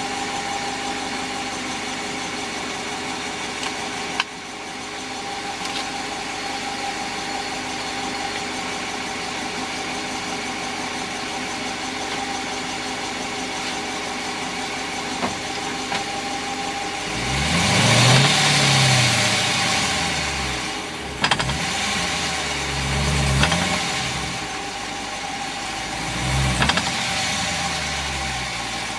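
2014 Dodge Challenger R/T's 5.7-litre Hemi V8 idling steadily, then running up and down in engine speed as the car is driven, with several sharp clunks from the rear differential in the second half. The owner blames the clunks on excessive differential backlash, which Dodge calls normal.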